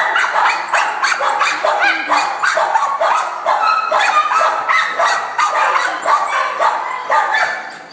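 Mixed-breed dog barking over and over, about two to three short barks a second without a break.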